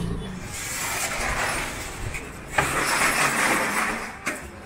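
Street traffic in a narrow market lane: a motorbike engine running close by, with a sudden louder rush of noise about two and a half seconds in that lasts a second and a half, then a sharp click near the end.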